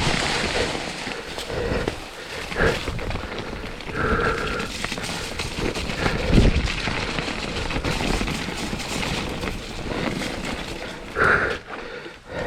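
Mountain bike riding down a wet, snowy trail: a steady rush of wind and tyre-on-trail noise with scattered knocks from the bike. Two short vocal sounds from the rider break through, about four seconds in and near the end.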